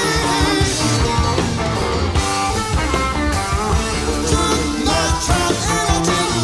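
Progressive rock band playing live, electric guitars and bass over a drum kit, in a full-band passage.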